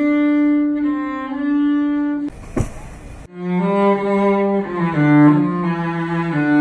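Solo cello bowed slowly: one long held note, then a slow melody on lower notes. About two seconds in, the notes stop for about a second of noise.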